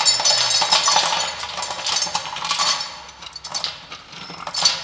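Dried turmeric roots poured from a steel bowl into a stainless-steel grinder drum, the hard pieces clattering against the metal. The clatter is dense for about three seconds, then thins to scattered rattles, with one more short rattle near the end.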